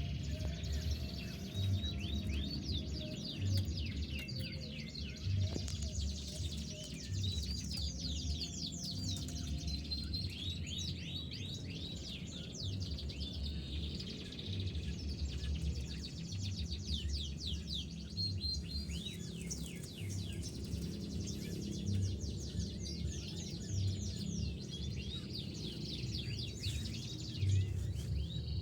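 Domestic canary singing: long runs of fast, high chirps and trills with brief pauses. Under it is background music with a low beat about every two seconds.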